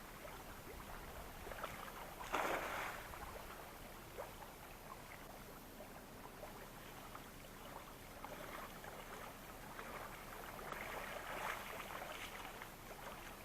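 Faint water splashing from a cast net being thrown and hauled back in the shallows for shad, in a few soft swells over low background noise.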